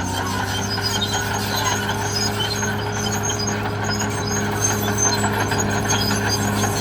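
Caterpillar D6R XL bulldozer's diesel engine running steadily under way, with a low tone that pulses about two to three times a second.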